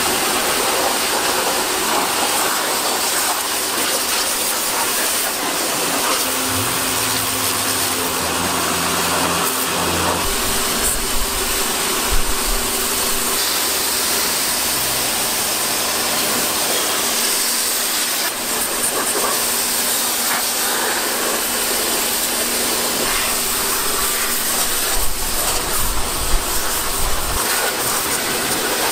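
Pressure washer jetting water over a car's engine bay to clean it: a steady hiss of spray with a low hum underneath.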